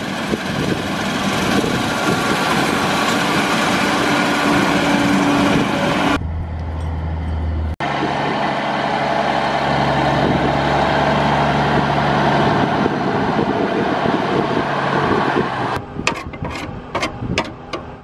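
Claas Lexion combine running steadily as it cuts soybeans, then a semi truck's diesel engine idling. Near the end comes a quick run of sharp clicks.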